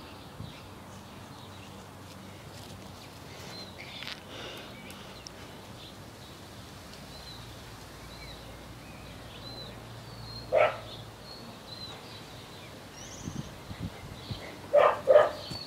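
A dog barking: once about two-thirds of the way in, then twice in quick succession near the end, over faint bird chirps.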